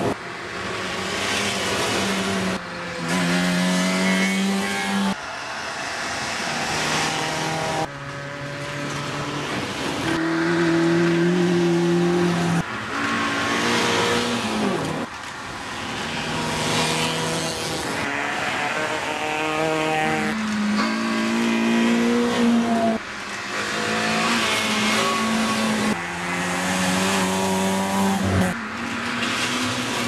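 Rally cars driven flat out past the listener one after another: engines revving high and climbing in pitch through the gears, with tyre and gravel noise. The sound changes abruptly every few seconds from one car to the next.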